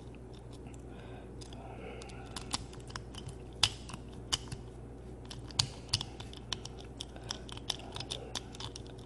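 Steel S-rake being raked and rocked inside a stainless steel disc lock: scattered sharp metallic clicks and scrapes at an uneven pace, growing busier about two and a half seconds in.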